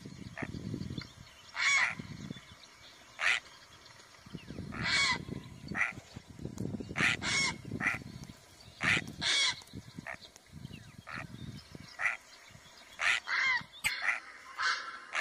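Grey heron calling over and over: loud, short calls at irregular intervals of about one to two seconds, some in quick pairs, over a low background rumble.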